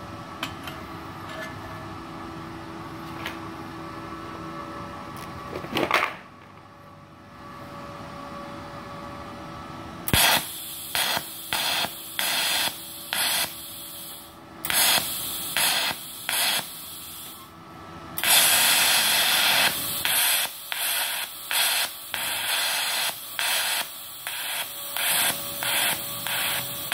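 Electric arc from a MultiPro TIG 200A-SA inverter welder set to about 83 amps, TIG welding thick steel. From about ten seconds in there is a loud arc hiss that switches on and off about twice a second, holds steady for a couple of seconds, then pulses again. Before that there is only the welder's faint hum and one short burst of noise.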